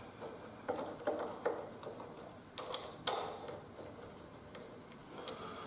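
Light metallic clicks of a hex key seating and turning in the clamp screw of a handlebar phone mount as it is tightened: a few soft ticks early, then three sharper clicks around the middle.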